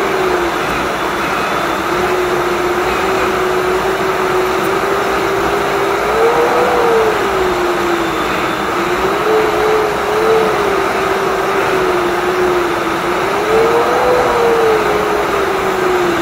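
Jet airliner cabin noise on approach to landing: the steady rush of the underwing turbofan engine and airflow, with the engine hum rising in pitch and falling back three times as the thrust changes.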